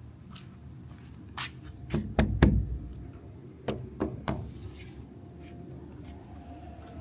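A handful of sharp knocks and taps, irregularly spaced, with a tight cluster about two seconds in that is the loudest, over a steady low rumble.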